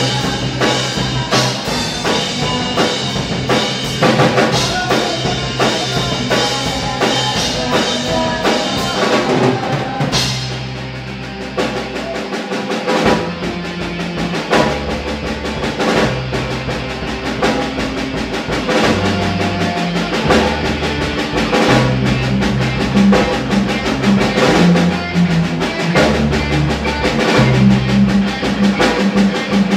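Live band playing rock: electric guitar, electric bass and a drum kit. About ten seconds in, the cymbals drop out and the music thins for a moment. Then a prominent bass line carries on under the drums, which build back up toward the end.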